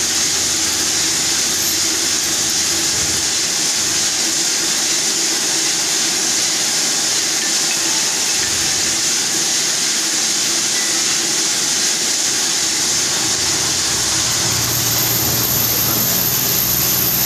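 Vertical machining centre cutting under flood coolant: a steady hiss of coolant spray and cutting with the spindle running, a high whine coming in near the end. The operators put the noise down to a problem with the cutting insert, not vibration.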